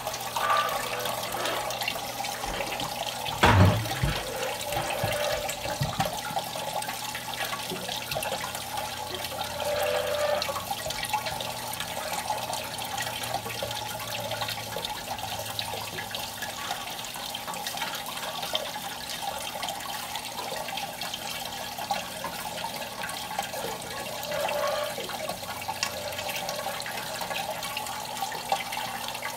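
Water pouring and splashing steadily through a copper kinetic fountain sculpture into its basin, under a faint low hum. A few loud knocks come about three and a half seconds in.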